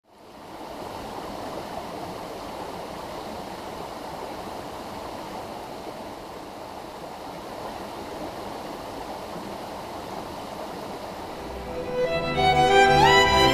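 Small mountain stream rushing over rocks in a shallow riffle, a steady even wash of water. About twelve seconds in, violin music comes in over it and is louder.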